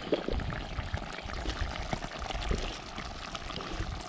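Chopped vegetables tipped from a stainless steel bowl into a pot of simmering crayfish soup, pushed out with a stick: splashing and plopping into the liquid, with irregular clinks and scrapes against the metal bowl.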